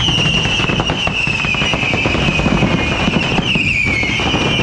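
Fireworks on a burning pyrotechnic figure: a loud, steady high whistle that dips briefly in pitch near the end, over a dense crackling hiss.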